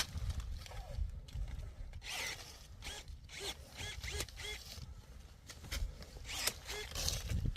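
Pruning shears snipping through quince branches, with short rustling swishes and sharp clicks as the blades close. A bird chirps about four times in quick succession about halfway through.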